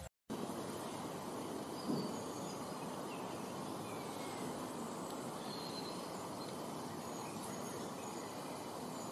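Steady outdoor ambient hiss in a garden, with a few faint, short, high bird chirps. A brief dull thump comes about two seconds in.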